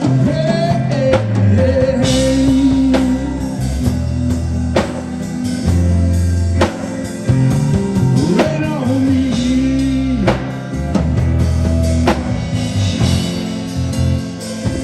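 Gospel band music between sung lines: a drum kit keeps a steady beat under held instrumental notes.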